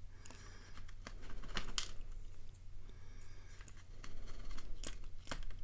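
Faint, scattered clicks and light taps of small metal lock parts and tools being handled while a padlock is gutted, with a low steady hum underneath.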